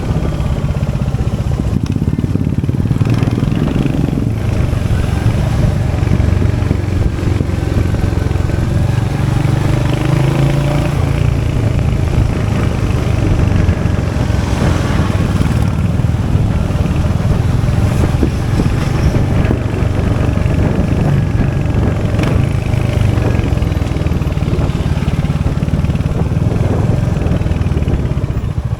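Royal Enfield Hunter 350's 349cc single-cylinder J-series engine running steadily, its exhaust giving a low, continuous thump.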